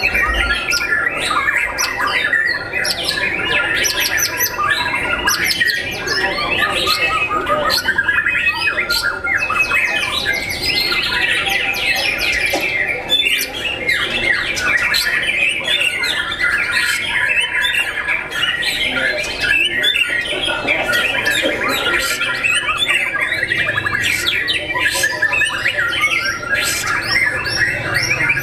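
White-rumped shamas (murai batu) singing a rapid, unbroken stream of varied whistles, trills and chatter, several caged birds overlapping.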